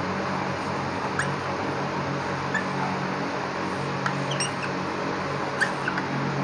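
Marker pen squeaking on a whiteboard in several short, high chirps as lines are drawn, over a steady background hiss and low hum.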